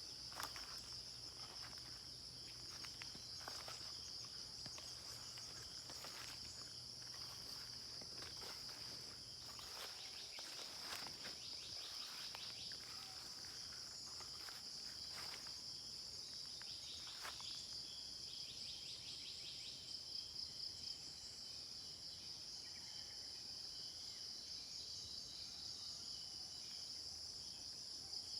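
Steady, shrill chorus of insects trilling high-pitched without a break, with a few brief chirps scattered over it.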